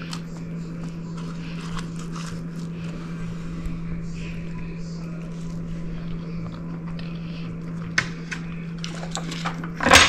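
A steady low hum, with a few light clicks and taps of a fork and knife, the sharpest about eight seconds in and near the end.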